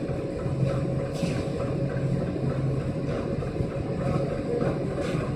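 Diesel train engine running with a continuous low hum that swells and eases, under a steady whine, with a couple of sharp clicks about a second in and near the end.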